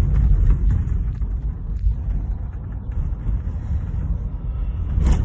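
Car cabin noise while driving: a steady low rumble of engine and tyres on the road, with one short knock near the end.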